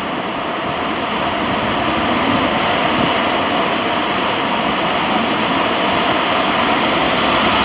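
Airbus A330-200 jet engines at high thrust on the takeoff roll: a steady, broad rush that grows slowly louder as the airliner speeds past.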